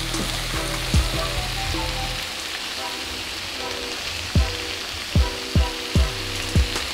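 Shrimp, bell peppers and onion sizzling in butter and olive oil in a skillet, a steady frying hiss. Background music runs under it, with low booming bass kicks that come thick in the second half.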